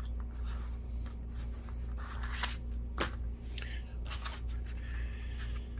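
Handling noise: a shirt sleeve brushing close past the microphone and things being moved about on the bench, heard as a series of short rustles and scrapes over a steady low hum.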